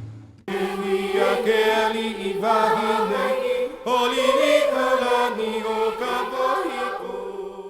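A voice chanting in long held notes that slide gently in pitch, starting about half a second in, with a brief break midway and fading near the end.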